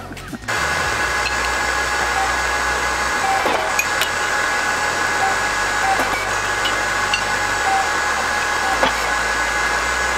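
Steady running noise of shop machinery with a couple of steady whining tones, starting abruptly about half a second in. A few light metal clinks sound over it as a metal wheel hub is handled on a shop press.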